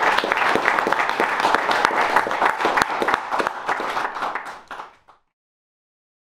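Audience applauding, a dense patter of many hands clapping, fading out about five seconds in and then silent.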